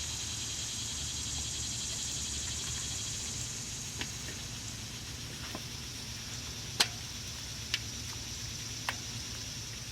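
A few sharp clicks and taps from handling a bicycle wheel rim and inner tube, the loudest about seven seconds in, over a steady background hiss.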